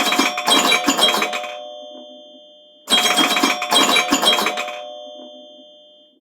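Phone alarm ringtone: a short chiming phrase of quick strikes whose tones ring on and fade away, played twice about three seconds apart.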